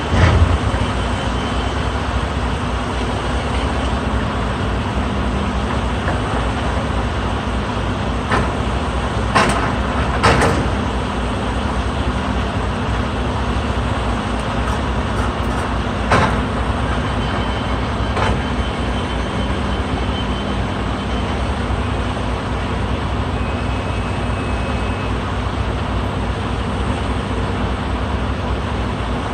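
Heavy diesel equipment engines running steadily with a low pulsing drone during excavator rock loading. Occasional sharp knocks and clanks cut through: one at the start, a cluster of three about a third of the way in, and two more a little past halfway.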